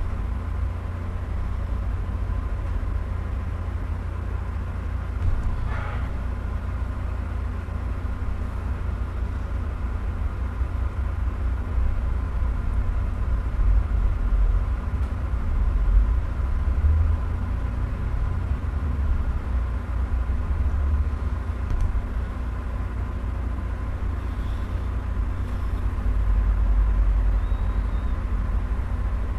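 Steady low background rumble with a faint steady hum above it, swelling slightly a few times.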